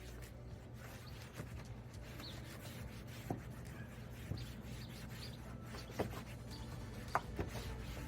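Light handling noises, a few sharp clicks and faint rubbing, over a steady low hum, as a plastic restorer is applied to black plastic trim.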